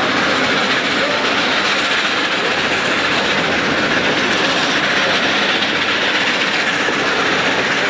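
Steady running noise of a train hauled by a Shay geared steam locomotive, heard from aboard an open passenger car: the sound of the locomotive working and the wheels on the rails blends into one even noise.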